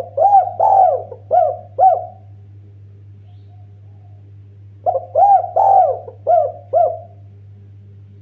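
Spotted dove cooing: two phrases of about five arching coo notes each, one at the start and one about five seconds in, over a steady low hum.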